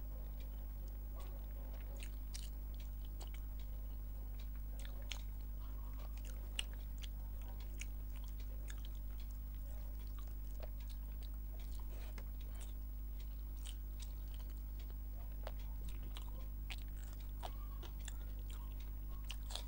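Close-miked eating sounds of rice and fish curry eaten by hand: chewing with scattered small, wet clicks from the mouth and fingers. A steady low hum runs underneath.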